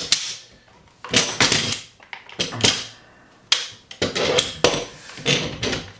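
Steel parts of an M1 Garand rifle clicking and scraping as the operating rod is turned and pushed forward into place on the receiver during reassembly: a string of irregular clicks and short scrapes with brief pauses between them.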